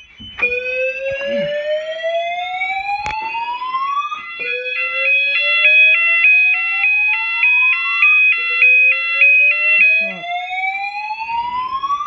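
Home fire alarm system sounding the AS2220 evacuation tone during a trial evacuation: a tone that rises slowly over about four seconds, then drops back and rises again, three sweeps in all. From about four to ten seconds the burglar alarm's outside siren box, tripped by the fire alarm, adds a fast higher two-tone warble over it.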